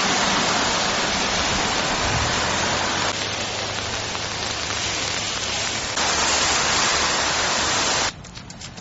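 Steady hiss of heavy rain falling, breaking off sharply near the end.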